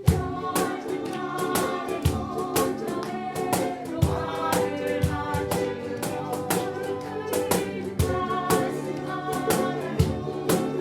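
Live ukulele ensemble music: regular strummed chords under a pitched melody line.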